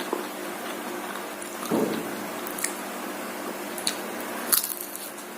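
A person chewing and biting martabak telur, an Indonesian stuffed savoury pancake, close to the microphone, with a few short sharp mouth clicks and crunches.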